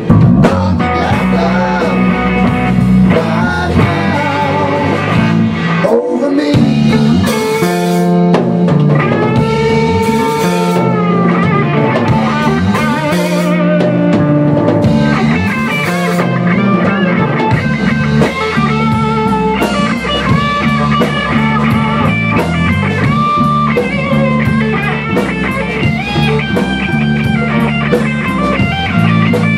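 Rock band playing live with no singing: electric guitar playing a lead line with bent, wavering notes over electric bass and a drum kit.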